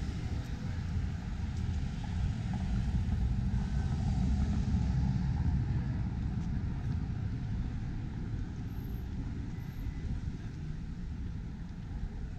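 Street traffic at a town intersection: a steady rumble of car engines and tyres, with one car swelling louder as it passes a few seconds in, then the noise slowly easing off.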